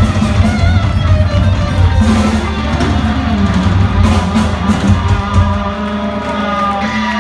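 Live rock band playing, with electric guitars over bass and drums. The low end drops away about five and a half seconds in, leaving held notes ringing.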